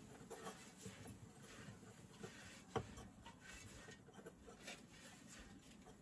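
Wild-herb tea leaves being pan-roasted by gloved hands in a hot cast-iron cauldron: faint rustling and scratching as the leaves are tossed and rubbed against the iron, with one sharp click a little before the three-second mark.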